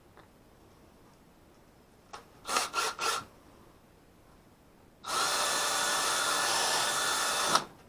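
Power drill reaming out a hole to enlarge it. It gives three short blips a little over two seconds in, then runs steadily for about two and a half seconds and cuts off just before the end.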